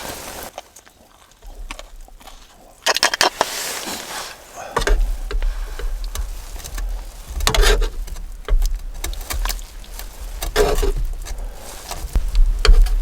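Clicks and light knocks of a utensil against a mess tin during a meal, over a steady low rumble.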